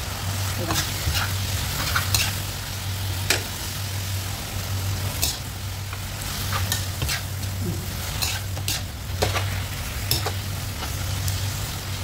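Chicken breast, onion and tomato sizzling in a nonstick wok while a spatula stirs them, with irregular clicks and scrapes of the spatula against the pan over the steady sizzle. A steady low hum runs underneath.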